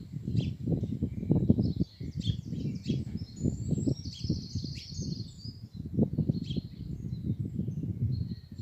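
Gusty wind rumbling on the microphone, with several birds chirping and singing over it; one bird gives a rapid trill about halfway through.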